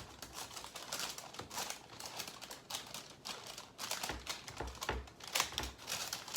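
Crumbly shortbread crust dough being pressed flat into a parchment-lined glass baking pan. The parchment paper crinkles under quick, irregular taps and scrapes, and a few dull low thumps come from about four seconds in.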